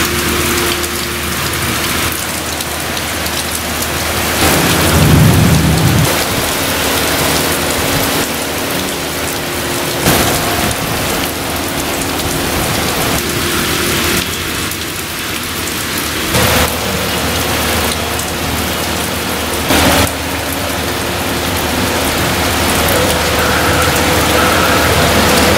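Heavy rain pouring down in a steady hiss, with a low rumble of thunder about five seconds in.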